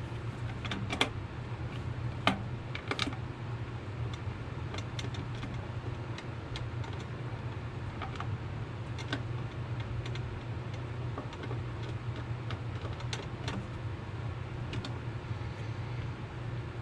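Hand screwdriver working screws into an Echo PB-250LN leaf blower's housing: scattered small clicks and ticks of the tool and screws, a few sharper clicks in the first three seconds, over a steady low hum.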